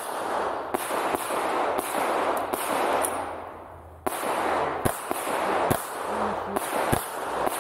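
Handgun shots fired in quick strings, about a dozen, each with an echoing tail. There is a pause of about a second near the middle before the firing resumes.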